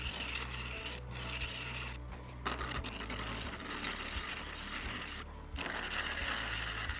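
A gouge cutting a cherry spindle blank spinning on a wood lathe: a continuous scraping hiss of shavings peeling off. It breaks off briefly about a second in, for half a second around two seconds in, and again just past five seconds as the tool lifts from the wood.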